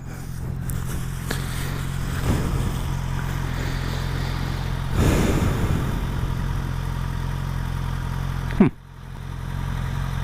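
Motorcycle engine idling steadily, with a brief swell of noise about halfway through and a sharp knock near the end.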